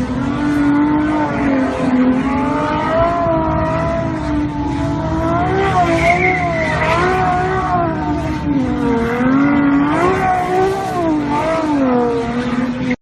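Car engine revving up and down again and again, with tyre squeal, in car-chase sound. The sound cuts off abruptly near the end.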